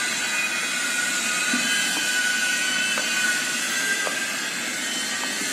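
Steady mechanical hum and hiss with a faint high, wavering whine, broken by a few faint clicks.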